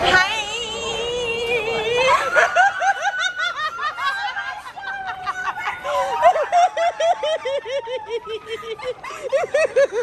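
Women shrieking and laughing in excited greeting: a long, high, wavering squeal first, then quick, repeated bursts of laughter and excited calling.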